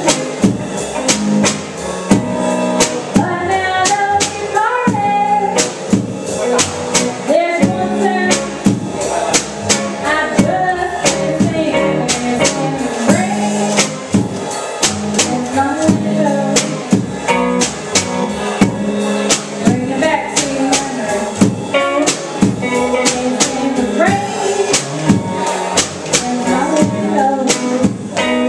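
Live band playing: a woman singing into a microphone over a drum kit keeping a steady beat, an upright double bass and a guitar.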